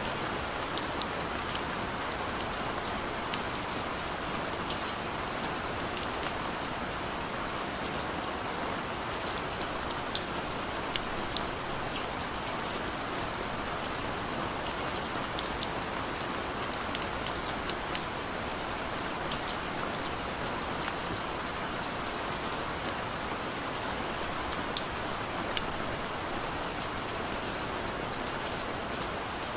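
Steady rain falling, an even hiss with the sharp ticks of individual drops striking a surface.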